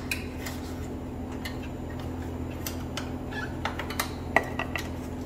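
Scattered light clicks and knocks of a wooden strip being handled and set against the metal table and fence of a Festool sliding miter saw, which is switched off, over a steady low hum.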